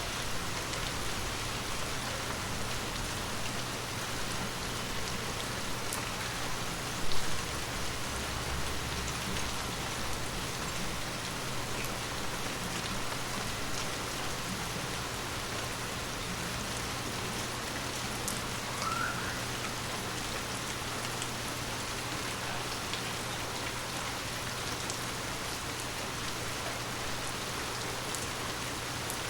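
Steady rain falling on forest leaves, with scattered individual drips ticking through the patter. A single low thump about seven seconds in stands out above the rain.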